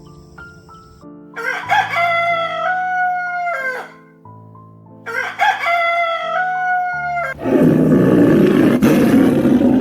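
A rooster crowing twice, each crow a long call of about two seconds that falls at the end, over soft background music. About seven seconds in, a loud, harsh, noisy animal sound takes over.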